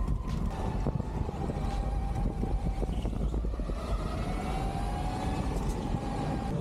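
Go-kart motor running, a whine that slowly dips and then rises in pitch over a steady low rumble.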